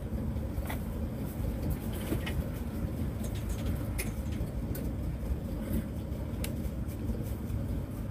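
Motor yacht's engine running steadily at slow canal speed: an even low rumble, with a few faint ticks.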